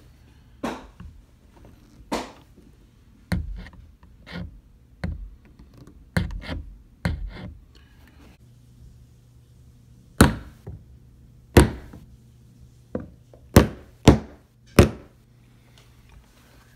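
A series of irregular sharp knocks and clunks, about fifteen, from work on a door's handle hardware. The loudest strikes come in the second half.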